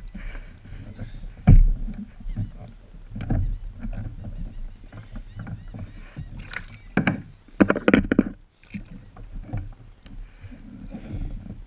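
Irregular knocks, thumps and rattles of hands working on a small homemade catamaran's deck and paddlewheel frame. There is a sharp thump about a second and a half in and a denser clatter around eight seconds.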